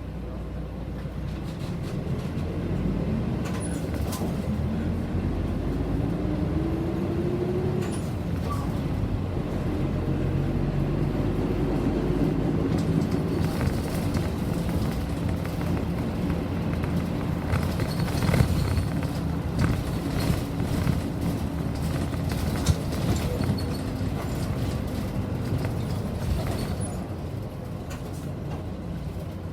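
City bus running, heard from inside the cabin: the engine note climbs twice early on as the bus accelerates, then holds steady at cruising speed. Knocks and rattles from the bus body come through, loudest about halfway through.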